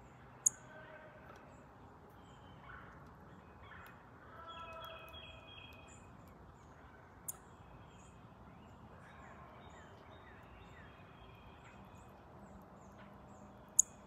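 Faint songbirds calling and singing in the background, with one quick run of repeated notes a few seconds in. Three sharp clicks stand out above them: one about half a second in, one midway and one near the end.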